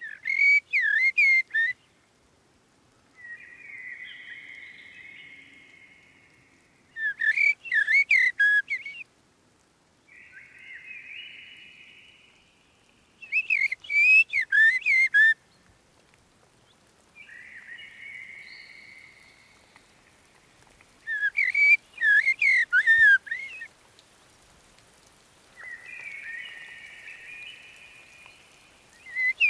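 Birdlike whistled song: short loud phrases of five or six rapid notes, repeated about every seven seconds, each answered by a quieter, hoarse, hissing call lasting two to three seconds.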